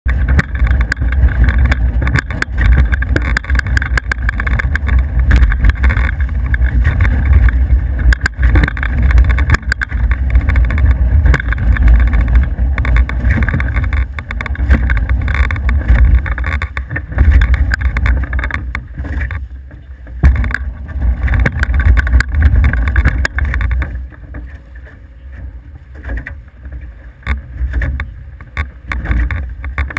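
Wind rumbling on the microphone and water noise aboard an F18 sailing catamaran under way. The rumble rises and falls unevenly and eases off near the end.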